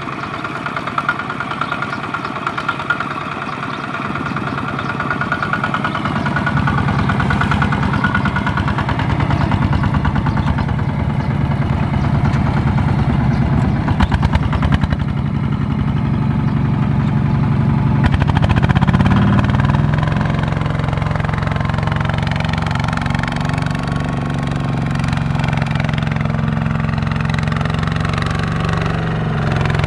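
Two-wheel walking tractor's (power tiller's) single-cylinder diesel engine running under load as its wheels churn through mud hauling a loaded trailer. It grows louder over the first several seconds. About 18 seconds in the revs rise, then hold steady at the higher pitch.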